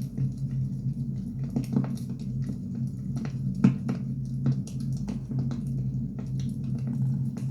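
Firewood burning with irregular crackles and pops over a steady low rumble, one pop louder than the rest a little before halfway.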